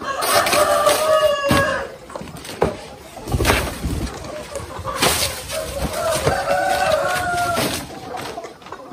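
A rooster crowing twice, each crow about two seconds long, with a few sharp knocks and thuds between the crows.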